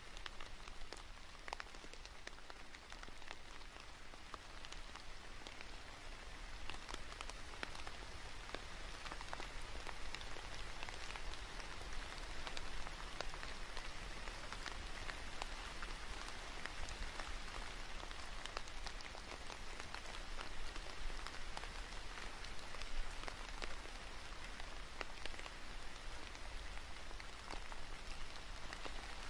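Steady rain falling, a continuous hiss dotted with many small ticks of individual drops.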